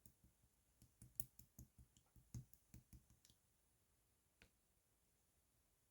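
Hot pink slime being handled by hand, giving a run of faint, irregular small clicks and pops over about three seconds, then one more click a little later.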